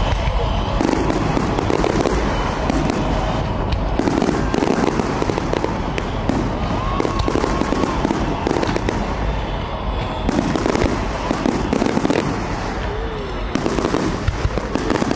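Fireworks display: aerial shells bursting in a steady run of bangs and crackling, the bigger bangs coming every second or two.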